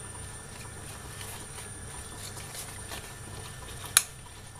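Fresh grape leaves being handled and their stalks pinched off, with faint rustling of leaves and plastic bag and one sharp snap about four seconds in, over a low steady hum.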